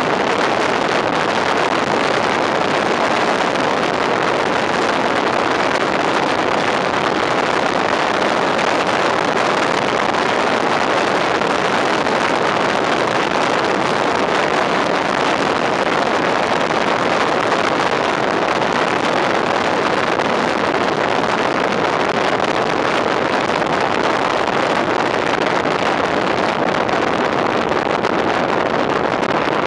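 Steady rush of wind over a microphone held out of the cab window of a moving fire engine, with the truck's road and engine noise underneath.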